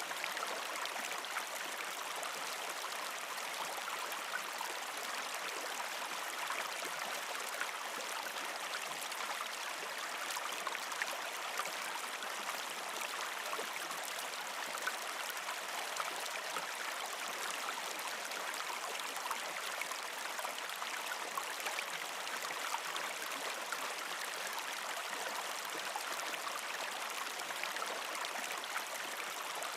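Stream water flowing steadily, an even rushing with many small splashes and trickles through it.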